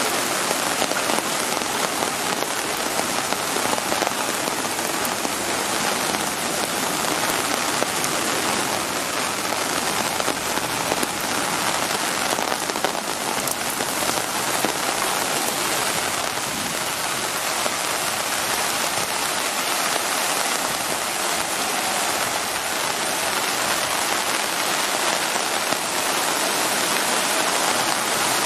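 Steady rain falling on standing floodwater, an even, unbroken hiss.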